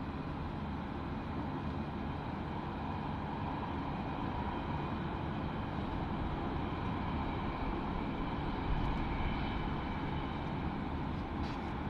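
Finnair Airbus A319-100's jet engines running during its landing: a steady rumble with a faint high whine that strengthens a little in the second half.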